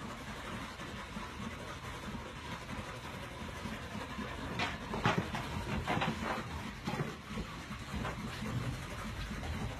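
Steady low vehicle rumble, like a truck carrying livestock on the move, with a few short sharp sounds about halfway through.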